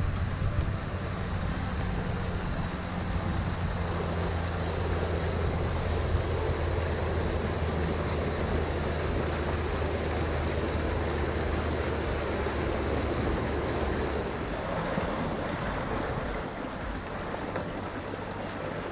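A small fishing boat's motor runs steadily underway with a low hum, over the rush of water and wind. The hum fades about three-quarters of the way through.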